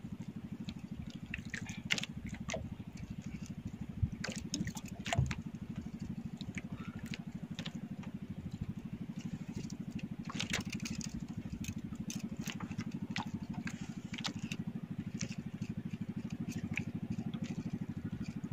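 A small engine running steadily on the boat, a low even hum with a fast pulse, with scattered sharp clicks and knocks over it, the loudest about four and five seconds in.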